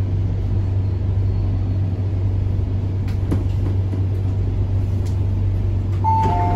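Steady low hum and rumble inside an MTR Kwun Tong Line C-train car. Near the end the train's door chime starts, two alternating beep tones repeating as the doors are about to open at a station.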